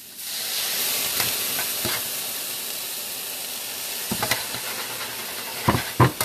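Water poured into a hot frying pan of sautéed mushrooms, flashing to steam with a sudden loud hiss and sizzle that slowly dies down: the pan being deglazed to lift the browned bits. Metal tongs click against the pan several times, loudest twice near the end.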